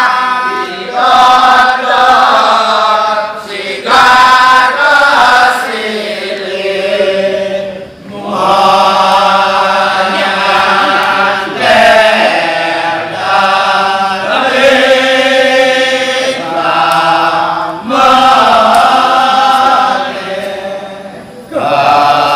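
Kecak chant: voices in a Balinese kecak performance chanting in long, held phrases that rise and fall in pitch, with short breaks every few seconds.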